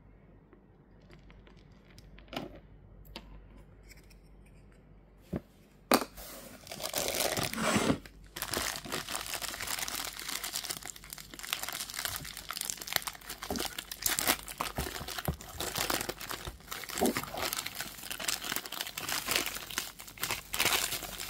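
Thin black plastic bag crinkling and rustling as it is handled and pulled open around a figure. A few faint clicks of handling come first, then continuous loud crinkling from about six seconds in.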